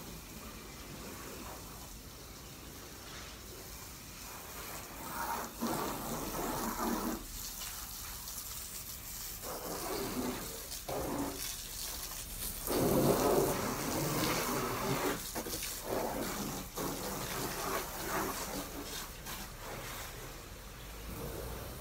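Water from a garden hose spraying against a car's bodywork, a steady hiss that swells in several louder spells of a second or two.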